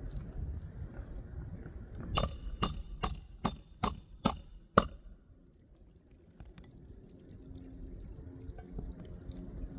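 Hammer driving a roofing nail into an asphalt shingle: seven quick blows, each ringing out, about two to three per second, starting about two seconds in.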